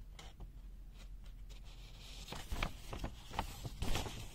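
Paper instruction booklet being handled: faint rustling and soft taps, a little louder in the second half.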